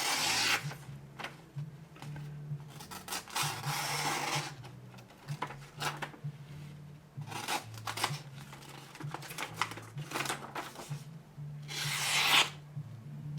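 Sheet of paper being sliced by the small 2-inch blade of a Spyderco ClipiTool: a series of short rasping cuts, the loudest near the end.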